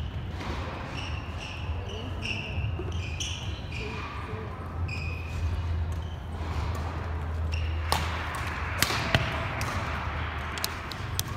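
Badminton rally: sneakers squeaking in short chirps on the wooden court, then sharp racket strikes on the shuttlecock, about eight and nine seconds in and several more near the end.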